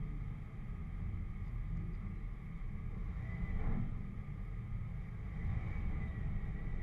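Jeep engine running low and steady as it crawls along a muddy off-road trail, picked up from a camera mounted on the vehicle, with a short louder jolt about three and a half seconds in.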